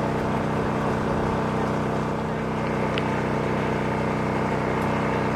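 A steady, unchanging motor drone, like an engine running at constant speed.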